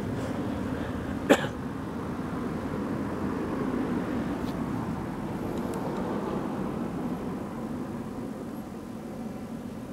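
Lorry engines rumbling steadily as trucks drive off a ferry, fading toward the end. A single sharp knock about a second in.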